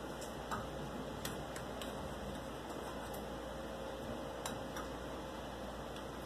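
Steady low background noise with a faint hum and a few scattered light clicks.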